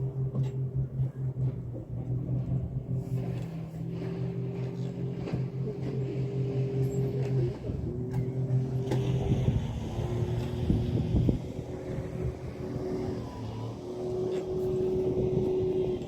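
A motor running steadily with a low hum, its pitch dropping and shifting briefly about halfway through before settling again.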